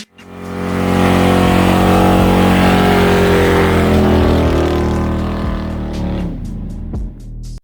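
A car engine running loud, its pitch slowly dropping as the revs wind down, fading away near the end.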